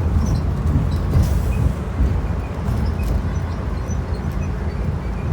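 Inside a 2012 IC RE school bus under way: its rear-mounted MaxxForce DT diesel engine running with road noise, a steady low rumble.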